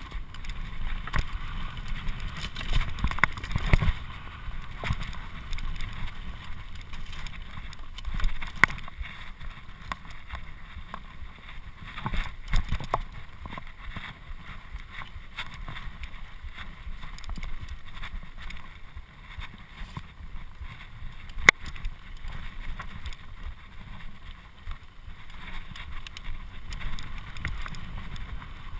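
Mountain bike rolling fast over dirt singletrack: tyres rumbling on the trail, with frequent rattles and knocks from the bike over bumps, and one sharp loud knock about three-quarters of the way through.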